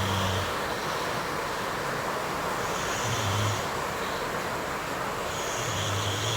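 Heavy rain pouring down in a steady hiss. A short low sound repeats three times, about every three seconds.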